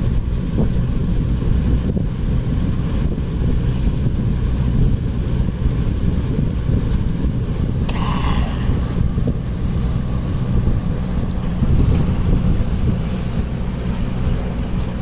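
Desert air cooler's fan running with a steady low hum.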